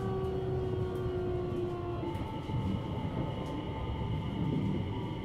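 JR West 227 series electric train heard from inside its motor car as it slows, with rumble from wheels on rail. The traction inverter's whine falls slightly in pitch for about two seconds, then changes to steady high tones.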